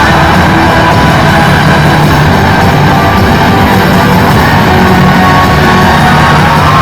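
Loud, continuous music for a dance routine.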